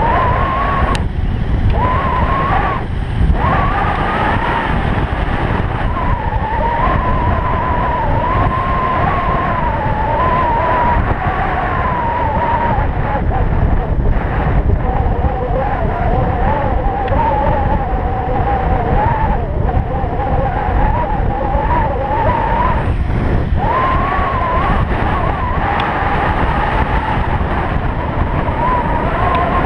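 Stealth Bomber electric bike riding fast on asphalt: heavy wind rush on the camera's microphone, with a whine that wavers up and down in pitch and drops out briefly a few times.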